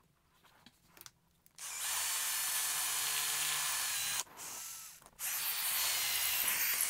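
Cordless drill running at speed, drilling a hole into the floor. It starts about a second and a half in, drops in level about four seconds in, stops for a moment near five seconds, then runs steadily again.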